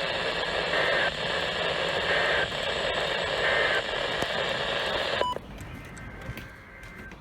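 NOAA Weather Radio receiver with heavy static hiss, carrying three short bursts of two-tone SAME digital data about a second and a half apart. Their shortness is typical of the end-of-message code that closes an Emergency Alert System test. About five seconds in, the hiss cuts off abruptly with a click, leaving a faint low background.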